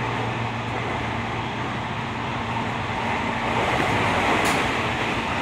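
Toyo Rapid Railway 2000 series electric train running at speed, heard from inside the passenger car: a steady rumble and rush of wheels on rail with faint steady tones underneath. It swells slightly about four seconds in, with a brief high hiss.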